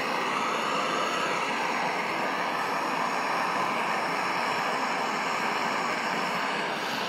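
Handheld gas torch, rated at about 3500 °F, burning with a steady hiss.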